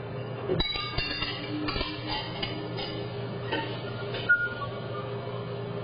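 Kitchen background of music over a steady low hum, with a few sharp knocks and clinks, the loudest about four seconds in.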